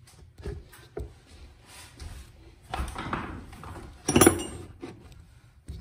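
Handling noise as the recording camera is picked up and turned around: a few light knocks, a rustling stretch, and a sharp, ringing clink a little after four seconds in.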